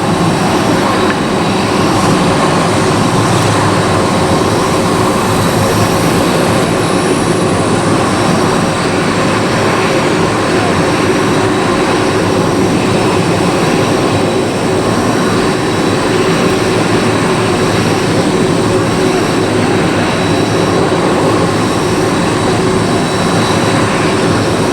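Airliner jet engines running in a steady, loud rush with a high whine, which falls in pitch part-way through.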